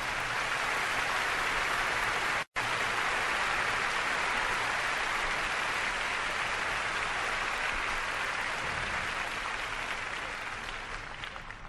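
Audience applauding steadily, with a sudden brief cut to silence a couple of seconds in, fading away near the end.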